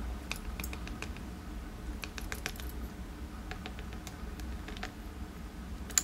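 Light, irregular clicks of tiny lock pins dropping out of an American 1100 padlock cylinder onto a rubber pinning mat, a sharper click near the end.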